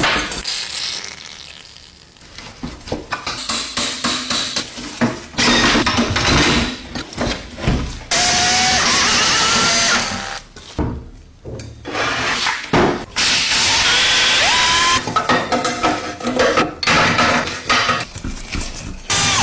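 Workshop power tools in short cut-together clips: a drill or similar power tool running in several steady stretches, some winding up in pitch. Short knocks and clatter of work on metal parts come between them, mostly in the first half.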